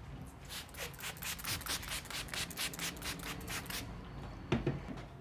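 Brisk rubbing massage strokes on the head, about four a second, then stopping; two short sharp taps follow near the end.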